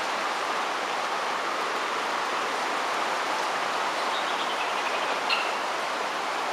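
Heavy storm rain on a leaking barn, a steady dense hiss of rain and running water.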